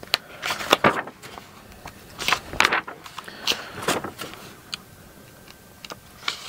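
Handling noise: irregular clicks, light knocks and rustles as hands move wires and loose parts of a 3D printer kit on a work mat.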